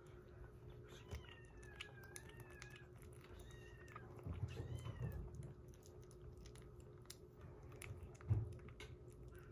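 Kitten chewing and lapping wet weaning food, with small wet clicks, while a kitten gives several thin, high, wavering mews in the first half. A short thump about eight seconds in.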